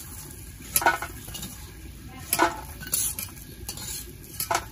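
Long steel spatula scraping and clinking against a steel kadai and a steel plate as fried lentil dumplings are scooped out of the oil: a handful of sharp metallic strikes, roughly one a second.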